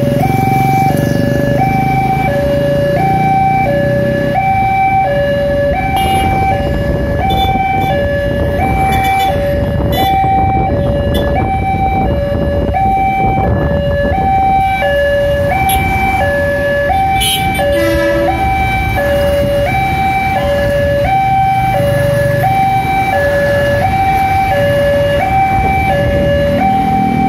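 Railway level-crossing warning alarm sounding a steady electronic two-tone chime, switching between a higher and a lower note roughly every two-thirds of a second, as the crossing is closed for a train. Continuous road traffic runs underneath, and a commuter train passes the crossing near the end.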